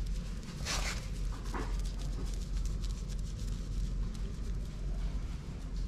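Fingers lathering and rubbing a baby monkey's wet fur in a basin of water: a short wet rush about a second in, a smaller one just after, and small wet ticks, over a steady low rumble.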